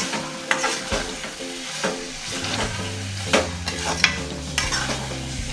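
Metal spoon stirring and scraping thick rajma masala in an aluminium kadhai as it fries on the flame, with a few sharp clicks of the spoon against the pan.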